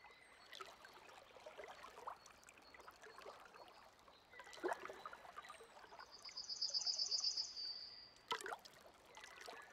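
Faint running water, trickling and splashing, with a short, high trill of rapid notes about six to eight seconds in.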